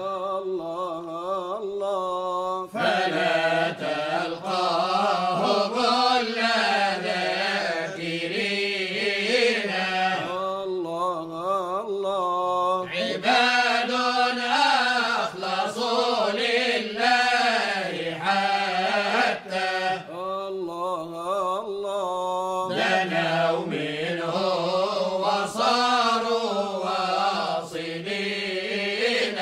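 Sufi chant from Cairo: voices singing wavering, ornamented melodic lines over a steady low note.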